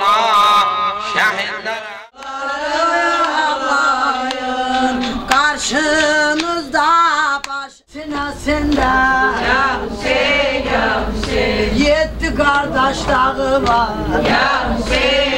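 A man singing a mournful elegy into a microphone, with long wavering notes, and two short breaks about two and eight seconds in.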